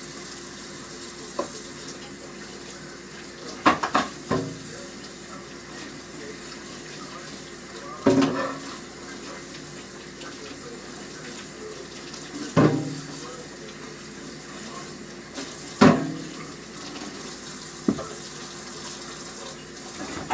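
Kitchen tap running into the sink during dishwashing, with dishes and pans knocking and clinking against the sink every few seconds, some with a short ring.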